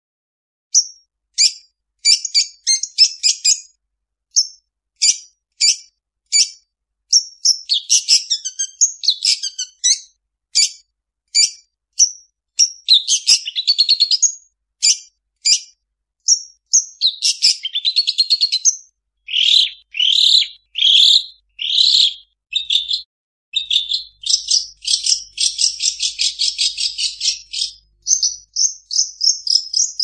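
Long-tailed shrike (cendet) singing in a rapid string of short, sharp high chirps and trills broken by brief pauses, its song stuffed with mimicked calls of other birds. Near the end comes a dense, buzzy run of notes lasting a few seconds.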